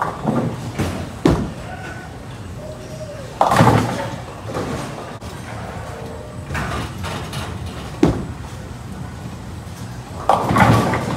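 Bowling alley clatter: several separate heavy knocks and crashes of bowling balls and pins, the loudest about three and a half seconds in and again near the end, with a sharp crack about eight seconds in.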